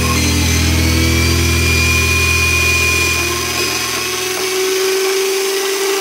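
Electric drill mounted in a drill press stand, running and drilling a hole through a thin steel piece, with a thin high whine over the motor's hum. The low hum fades away about four seconds in.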